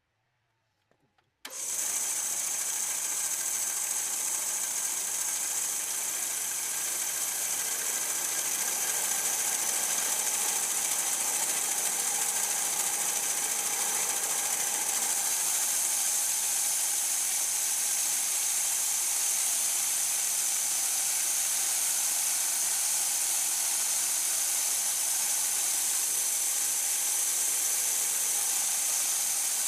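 A homemade machine tool starting up about a second and a half in and then running steadily with a high, hissing whir.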